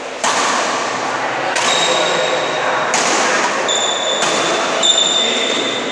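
Badminton rally: a series of sharp racket-on-shuttlecock hits a little over a second apart, each echoing in the hall, with high squeaks of sneakers on the court floor in the second half.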